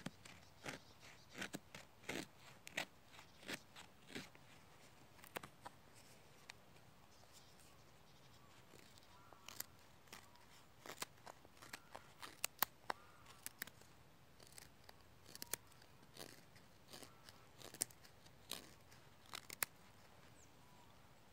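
Fixed-blade knife shaving thin curls off a small piece of dry wood, to make tinder for a fire. A series of short, sharp scraping strokes at an uneven pace.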